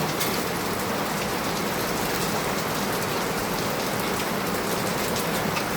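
Heavy rain falling steadily, a dense even hiss of drops hitting the ground and surfaces, with faint individual drop ticks.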